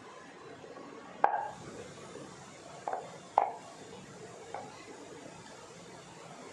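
Four sharp wooden knocks from a wooden rolling pin against a round wooden rolling board (belan and chakla) as luchi dough is rolled out; the loudest come about a second in and near the middle.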